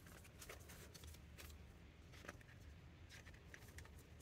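Faint rustling and light crackles of paper banknotes and a clear plastic binder envelope being handled.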